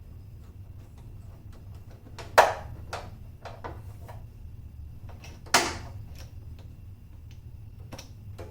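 Two sharp clunks about three seconds apart, with lighter clicks and taps between, over a low steady hum: tools and parts being handled during work on the car.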